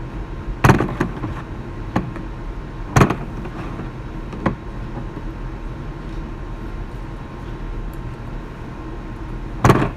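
Sharp knocks and taps from objects being handled and set down, about six in ten seconds, the loudest near the start, about three seconds in and near the end, over a steady low hum.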